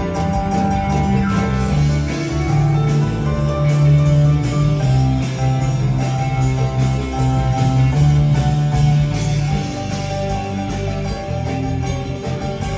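A rock band playing an instrumental passage with guitar and a drum kit keeping a steady beat, with no singing.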